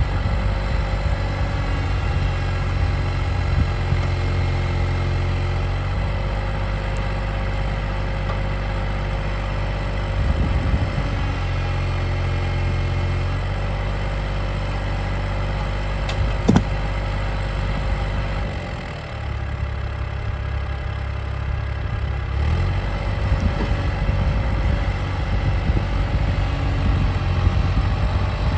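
Cat 303.5 mini excavator's diesel engine running steadily, with its tone shifting now and then, and one sharp click about two-thirds of the way through.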